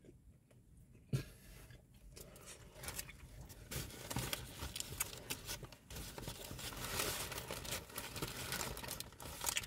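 Paper kebab wrapper crinkling and rustling with irregular crackles as fingers pick at doner kebab meat, busier after the first few seconds, with one sharp click about a second in.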